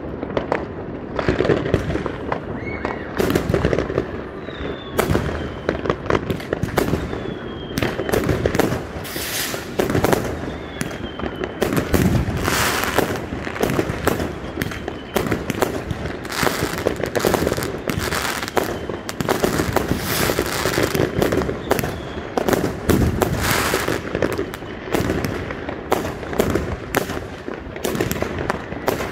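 Fireworks going off almost without a break: a dense run of bangs and crackles from aerial shells and rockets bursting overhead.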